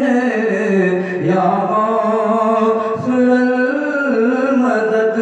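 A man singing a naat (Urdu devotional hymn), drawing out long held notes that glide up and down.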